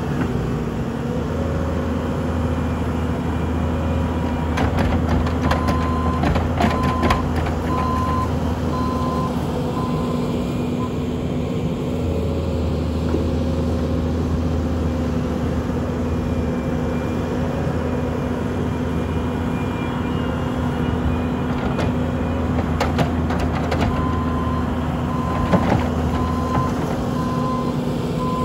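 Bobcat T770 compact track loader's diesel engine running steadily, with a backup alarm beeping in two stretches, once around the first quarter and again near the end. Scattered metallic knocks and clatter come with the beeping.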